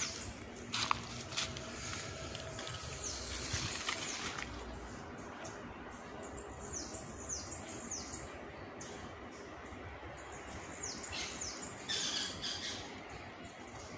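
Wild birds calling outdoors: many short, high chirps that fall in pitch, coming thickest in the second half, over a steady background hiss. A single sharp click sounds about a second in.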